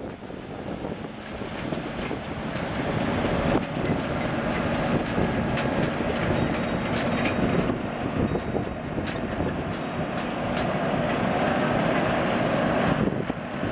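Heavy diesel truck engine, the Cummins in a 2009 Peterbilt 367 crane truck, running under load. It grows louder over the first couple of seconds and then holds steady, with scattered clanks and rattles from the truck.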